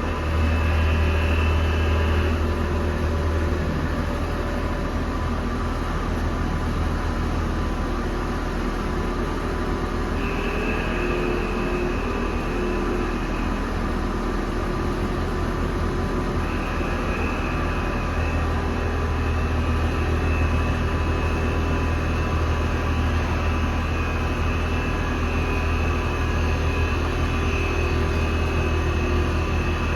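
Lathe running steadily: a constant low motor hum, with a higher whine that drops out for a while and comes back.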